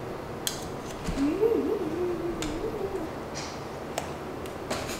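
Spatula scraping and tapping against a foil lasagna pan, a few short scrapes, while a low wavering hum-like tone rises and falls for about two seconds from about a second in.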